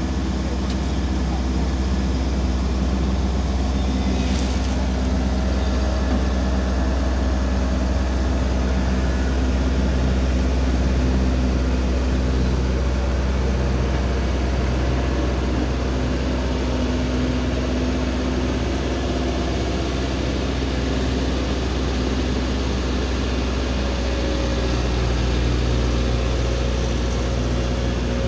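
Excavator's diesel engine running steadily with a deep hum, its pitch shifting a little as it holds a precast concrete segment on slings.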